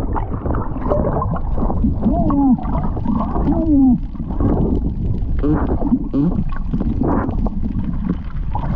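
Underwater, a diver's excited shouts of "oh yeah!" come through the water over a steady gurgling, churning water noise.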